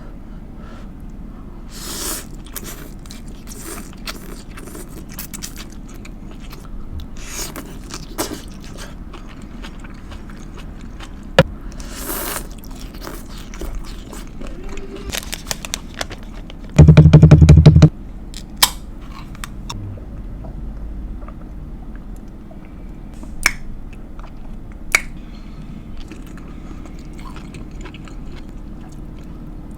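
Close-miked eating of ramen: chewing, short slurps and sharp wet clicks. Past the middle comes a loud, low buzzing sound lasting about a second.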